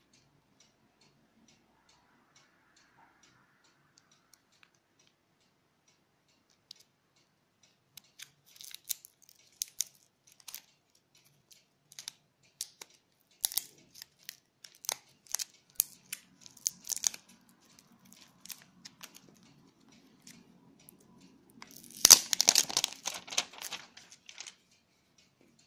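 Hands handling a small plastic Bluetooth speaker and its cardboard box: scattered clicks, taps and scratches, then a louder burst of scraping and rustling near the end. A faint steady ticking runs under the first several seconds.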